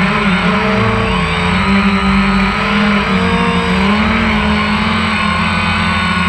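Phantom 1 quadcopter's electric motors and propellers whining in flight, heard from the on-board camera: several steady pitches that waver up and down as the motor speeds change.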